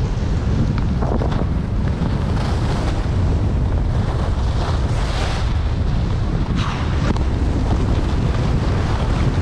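Wind rushing over the camera's microphone as the skier carrying it goes downhill, a steady low buffeting with the hiss of skis sliding on snow over it.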